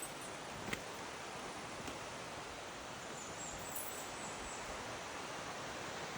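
Steady outdoor jungle ambience: an even rustling hiss, with a single sharp click a little under a second in.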